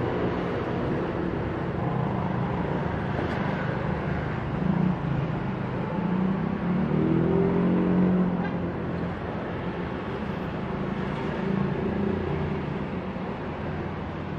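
Cessna 172M Skyhawk flying overhead: the steady drone of its single piston engine and propeller. It grows louder through the middle and fades toward the end.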